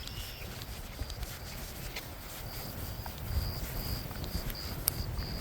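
Wind rumbling on the microphone, with scattered footstep-like clicks. From about halfway, a high, short chirp repeats about three times a second.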